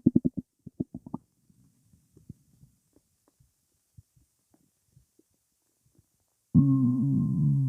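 Stomach rumbling from gas moving through an empty stomach: a quick run of gurgling pulses that dies away within the first second, a near-quiet stretch with faint ticks, then a loud, long pitched growl that wavers up and down, starting near the end.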